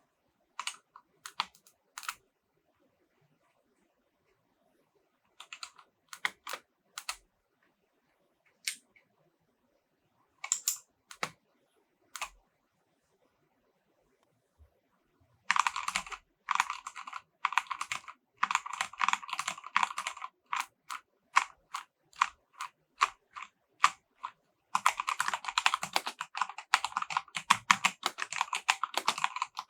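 Typing on an EVGA Z15 mechanical keyboard with silver switches. The first half holds a few scattered, separate keystrokes. From about halfway in, it turns into fast, continuous typing with a short pause, then picks up again densely near the end.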